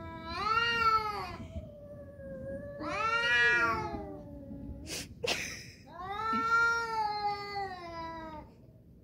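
Two domestic cats yowling at each other in a face-off: three long, wavering caterwauls that rise and fall in pitch, the threat calls of cats squaring up to fight. A brief sharp noise comes about five seconds in.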